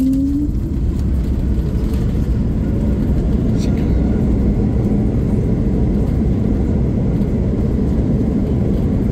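Steady low rumble inside the cabin of a jet airliner rolling on the runway just after touchdown, with ground spoilers raised to slow it.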